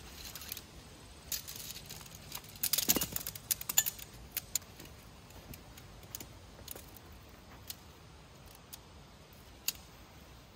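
Segmented tent poles clinking and clicking as they are shaken out and their sections snapped together. There is a quick run of metallic clinks about three seconds in, then scattered single clicks.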